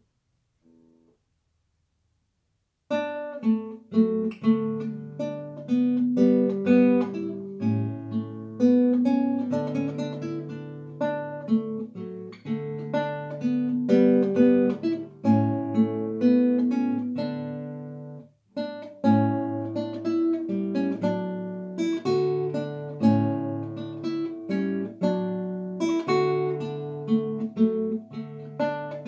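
Solo classical nylon-string guitar played fingerstyle: plucked melody notes over a bass line, starting about three seconds in after near silence. The playing stops briefly a little past halfway, then carries on.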